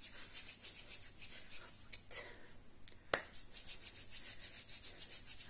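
Palms rubbing briskly back and forth against each other in quick, even strokes, felting a moistened wool yarn join (a spit splice) with friction and heat. The rubbing pauses briefly a little after two seconds, and a single sharp click is heard about three seconds in.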